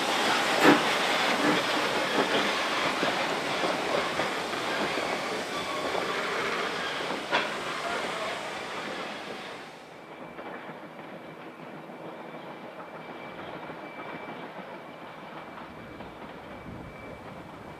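Steam-hauled train running along the track: a steady rush with several sharp clicks from the wheels over the rail joints. About ten seconds in it becomes abruptly much quieter, leaving a low rumble with a faint steady whine.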